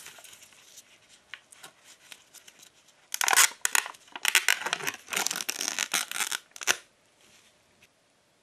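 Sealed lid being peeled off a plastic dessert cup: a crackling tear in several pulls lasting about four seconds, after a few seconds of light handling ticks.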